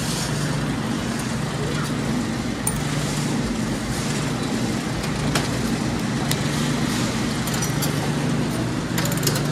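Steady low droning background hum of a large store, with a few faint light clicks and taps, a small cluster of them near the end.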